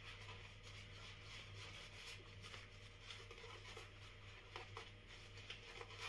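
Faint, soft swishing of a shaving brush working thick shave-cream lather over a bearded face, over a low steady hum.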